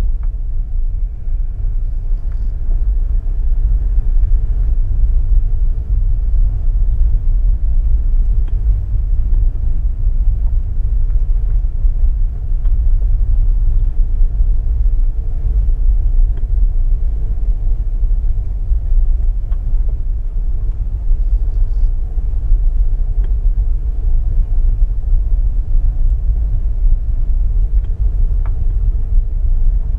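Steady low rumble of a car being driven, the road and engine noise unbroken throughout, with a few faint ticks.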